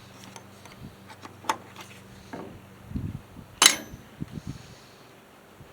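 Scattered clicks and knocks of hand tools on a lawn mower carburetor as its float bowl is taken off, with a low thud about three seconds in and a sharp clack just after.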